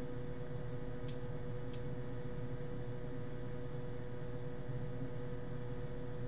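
Steady electrical hum with a low whir beneath it, and two faint short ticks about a second in.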